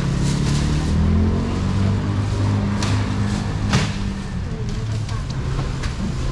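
A motor vehicle's engine running close by, its pitch rising a little over the first two seconds, with two sharp clatters near the middle.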